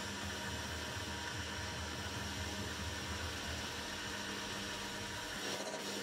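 Metal lathe running, its cutting tool turning a spinning metal workpiece: a steady machine hum with an even hiss of cutting. The low rumble drops away near the end.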